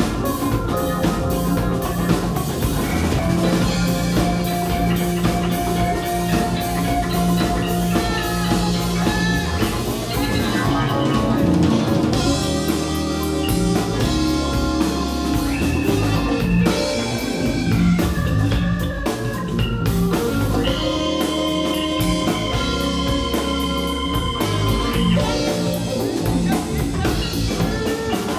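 Live band playing an instrumental passage in B-flat: an alto saxophone plays held lead notes over electric guitar, keyboards, bass guitar and a drum kit keeping a steady beat.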